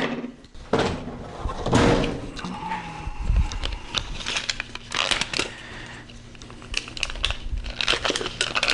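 Plastic packaging and a plastic blade sheath being handled: irregular crinkling, clicks and taps.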